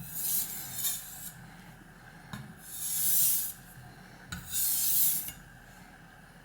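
Kitchen knife blade drawn across a wet, muddy Suehiro SKG-38 combination waterstone in light backstrokes: four high-pitched scraping strokes, the third the loudest. A small tick comes just before each of the last two strokes.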